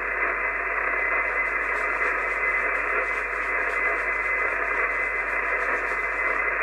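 Steady hiss of HF band noise from the Icom IC-751 receiver's speaker on an open single-sideband channel, with no station transmitting, plus a faint steady high whistle.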